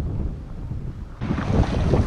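Wind buffeting the microphone: a low rumble that jumps abruptly louder and brighter about a second in.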